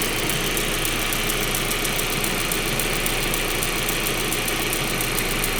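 VW Audi 1.8T turbocharged four-cylinder engine idling steadily, with a fast, even ticking running in time with the engine. The owner has not traced the tick's cause.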